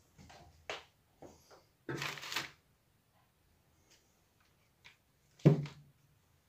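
Handling noises of an opened Celma electric drill: its plastic housing half is lifted off and laid down on a paper-covered table, with clicks and a rustle, then a sharp knock about five and a half seconds in as the drill body is picked up.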